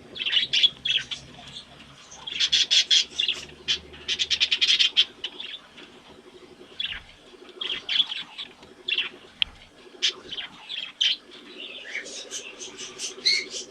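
Budgerigars chirping and warbling, with quick runs of sharp, high chirps about two seconds in and again near the end.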